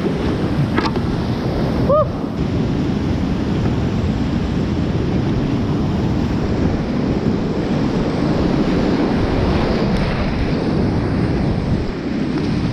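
Whitewater rapids rushing steadily around a kayak running a river rapid. A short high squeak about two seconds in.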